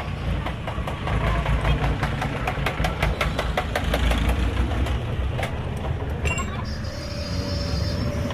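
Motor vehicle engine running amid street traffic noise, with a run of light clicks and taps from about two to five seconds in.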